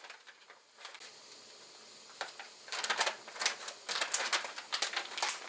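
Irregular clicks and rustles of objects being handled, coming in quick runs from a couple of seconds in.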